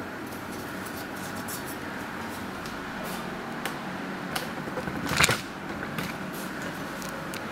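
Steady low machine hum with scattered light clicks and a short, louder burst of rustling handling noise about five seconds in.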